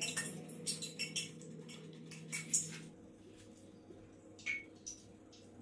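Kitchen knife cutting and scraping through a plantain's peel and flesh: a quick run of small clicks and scrapes, thinning to a few scattered ticks after about three seconds. A low hum stops about three seconds in.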